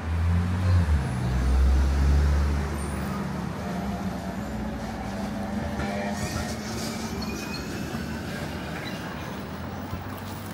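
A motor vehicle passing close by on a city street, its deep engine rumble loudest for the first two and a half seconds, then easing into steady street traffic noise.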